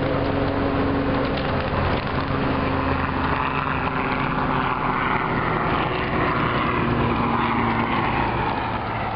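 Large-scale garden railway freight cars rolling past close by, their wheels running over the track with a steady rumble and clatter.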